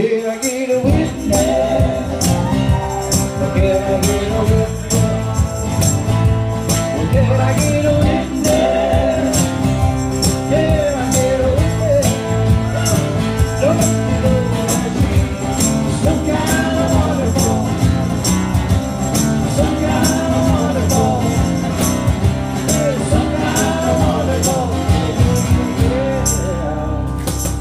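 Live band playing a song: electric bass, keyboard and a sung melody, with hand percussion jingling sharply on the beat.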